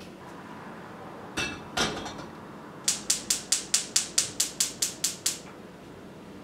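Two knocks as an enamel teapot is set down on the gas hob's burner grate, then the hob's spark igniter clicking rapidly, about a dozen clicks at five a second, while the burner knob is held to light the gas. The clicking then stops.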